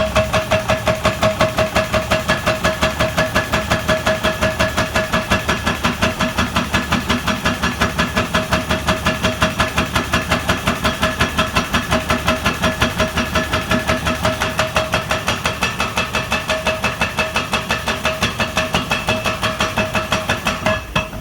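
Pile driver driving steel beams into a riverbed: a rapid, even hammering of about five strikes a second, with a steady metallic ringing tone.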